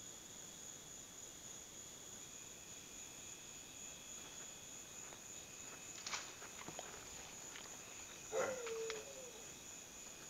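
Crickets chirring steadily in the night. A dog barks a few times in the second half, the loudest bark about eight seconds in.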